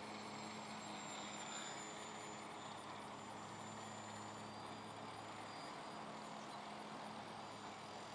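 Faint, distant motor and propeller of a scratch-built foam RC plane flying overhead: a thin high whine that dips slightly in pitch about a second in, over a steady low hum.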